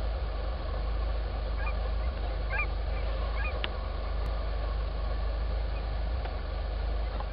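Distant geese honking, a handful of short calls between about one and a half and three and a half seconds in, over a steady low rumble.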